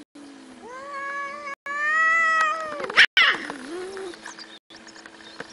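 Cats caterwauling in a standoff: a low falling moan, then a long yowl that climbs in pitch for about two seconds. About three seconds in comes a sudden sharp hiss, loudest of all, followed by a short lower yowl.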